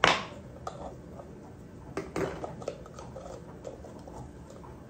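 A pepper jar being handled and its lid twisted open: a short scraping rasp at the start, then scattered light clicks and taps.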